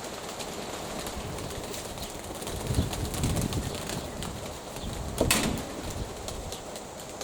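Domestic pigeons cooing in soft low pulses against wind noise, with one sharp rustling clap about five seconds in.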